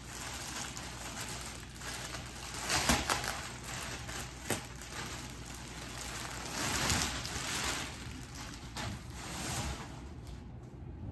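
Clear plastic bag crinkling and rustling in uneven bursts as a folded shag rug is pulled out of it, with sharper crackles about three and four and a half seconds in.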